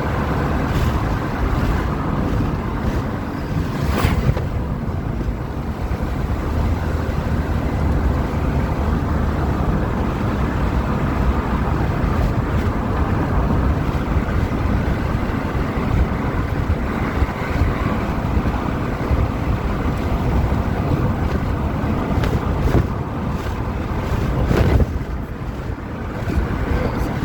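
Wind blowing across the microphone in a steady rush, with a couple of brief knocks about four seconds in and near the end.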